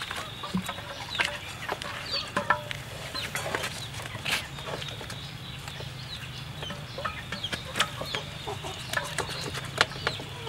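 Chickens clucking in short, separate calls, mixed with short wet knocks and squelches of raw beef being handled in a metal basin, over a steady low hum.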